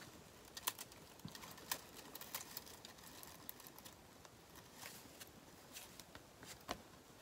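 Faint, scattered clicks and light taps of small decorations being handled and set in place on a wooden craft sign, about ten in all at uneven intervals.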